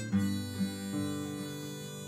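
Harmonica played in a neck rack over two strummed acoustic guitars, with a strong chord landing just after the start, in an instrumental break with no singing.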